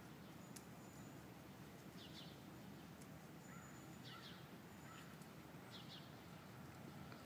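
Near silence: a faint outdoor background with a few short, high bird chirps, about one every two seconds.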